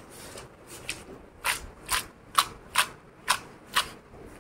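Cut cashew-apple pieces being tossed and mixed by hand in an aluminium bowl: a series of about six short rustling strokes, roughly two a second, starting about a second and a half in.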